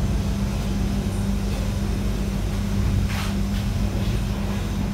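Running noise inside a stainless-steel executive train coach: a steady low rumble with a constant hum, and a short burst of noise about three seconds in.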